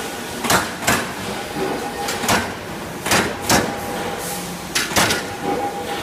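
Tailift VISE1250 NC turret punch press punching sheet steel: about seven sharp metallic bangs at uneven spacing, several in quick pairs, over the machine's steady running hum.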